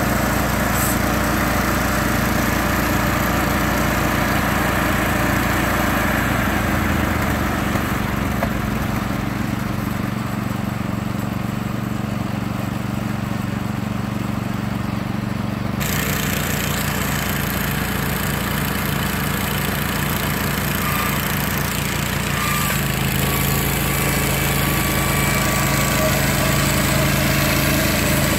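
Norwood HD36 hydraulic bandsaw mill running steadily as it saws a large log. About a quarter of the way in the engine note shifts lower and the higher sounds fade, then come back suddenly just past halfway.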